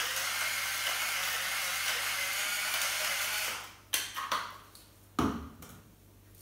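Electric seasoning mill whirring as it grinds into the pot, stopping about three and a half seconds in. A few clicks follow, then a thump as the mill is stood on the stone countertop.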